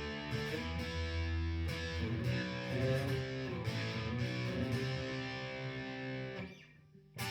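Electric guitar played through a guitar amp's low-gain channel, chords and notes ringing out with mild overdrive, picked up by a phone's microphone. The playing stops about six and a half seconds in and starts again near the end.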